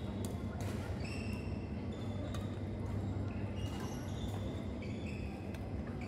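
Badminton rally: sneaker soles squeak briefly on the court floor over and over, and rackets hit the shuttlecock with several sharp taps, over a steady low hum.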